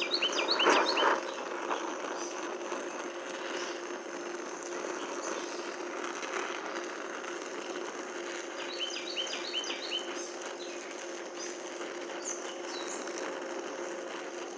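Oxy-acetylene welding torch's neutral flame hissing steadily as it preheats stainless steel plate, louder for about the first second. A bird chirps in quick runs of notes near the start and again about nine seconds in.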